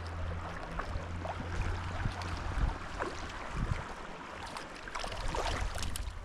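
Shallow creek water running steadily, with scattered small splashes and knocks while a small hooked brown trout is brought in.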